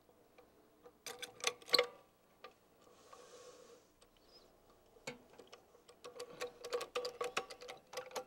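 Metal clicking and rattling from a hand-operated Hi-Tech modular lifting jack as its handle is worked under an office partition panel, with a faint ring under the clicks. A short cluster comes about a second in and a longer, faster run from about five seconds in.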